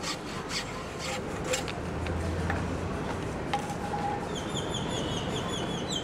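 Hand hacksaw cutting through a wooden root in rasping back-and-forth strokes. In the second half a bird chirps repeatedly in quick short notes.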